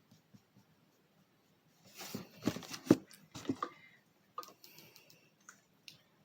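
Handling noise while painting: a quick run of small clicks, taps and rustles about two seconds in, then a few fainter ticks, picked up close to a phone microphone.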